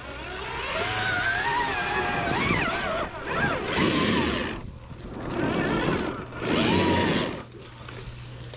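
Motorcycle engine revving hard on a rough trail climb: a rising, wavering whine for the first few seconds, then three loud surges of throttle, easing off near the end.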